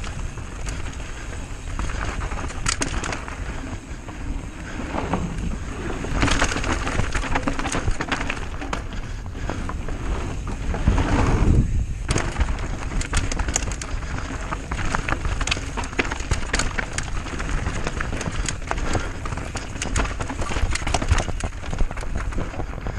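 Mountain bike rolling down a dirt enduro trail: a continuous rumble of tyres over dirt and stones, with frequent rattles and clicks from the bike.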